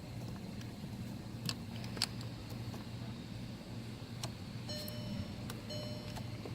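A few small plastic clicks as a car's rotary headlight switch is pushed in, twisted and worked loose from the dashboard, over a steady low hum.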